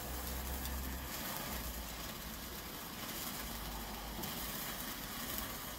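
Handheld Bengal light (Weco Zauberlichter) burning with a steady hiss, over a low rumble that is strongest in the first second.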